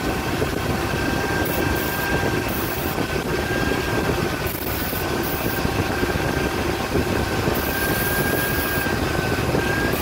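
Carbureted 5.3 L LS V8 idling lean while carb cleaner is sprayed at the Holley 650 carburetor in three short hissing bursts. The idle picks up when the spray reaches the driver's-side throttle shaft, the sign of a vacuum leak through the worn throttle shaft bore.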